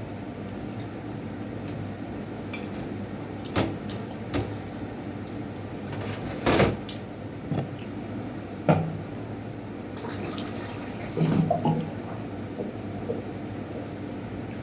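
Eating noises at a meal table: several separate knocks and clatters, the loudest about six and a half seconds in, over a steady background hum.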